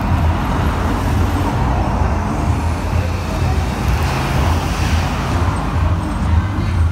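Steady low engine rumble, unchanging throughout.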